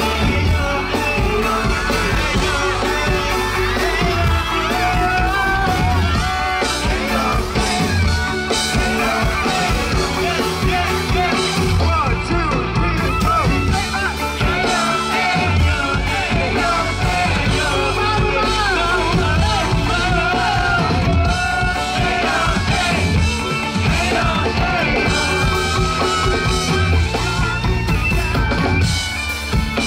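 Live pop-rock band playing: a male lead singer sings into a microphone over drums and electric guitar.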